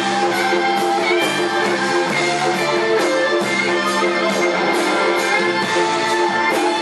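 Live electric blues played on a Les Paul-style electric guitar: held, singing lead notes with slight bends over a band with drums keeping a steady beat.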